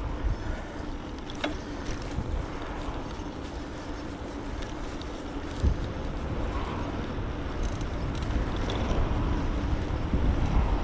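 Wind buffeting a GoPro action camera's microphone, with tyre rumble, while riding an electric bike on the road; it grows louder over the last few seconds.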